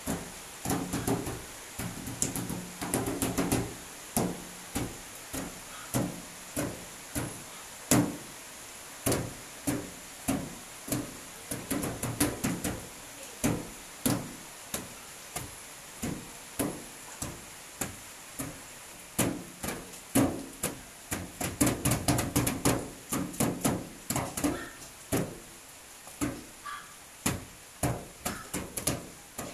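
Child's flat hands drumming on the sheet-metal bonnet of a wet car: an irregular run of sharp slaps, about one or two each second, sometimes in quick clusters.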